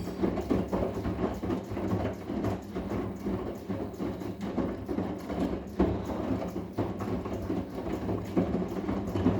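Arçelik 10121 front-loading washing machine running a wash cycle: the drum turns over wet laundry, giving irregular soft knocks and sloshing over a steady low motor hum.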